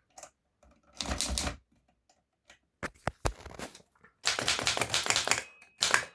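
Manual portable typewriter clattering as it is worked: sharp typebar and key clicks, single at first, then in quick dense runs, the longest near the end.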